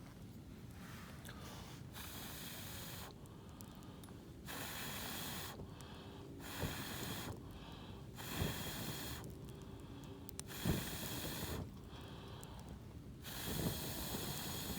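Repeated rushes of blowing breath, about seven, each lasting a second or so and roughly two seconds apart, as if someone is blowing on a bonfire to liven the embers; a few soft thumps come with some of the blows.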